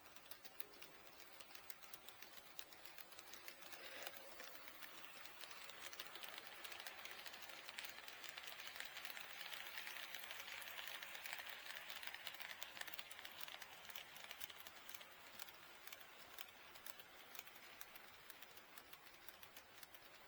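HO scale model train running on KATO Unitrack: a fast patter of small clicks from the wheels over the rail joints, swelling to its loudest about halfway through and fading again as the train passes by.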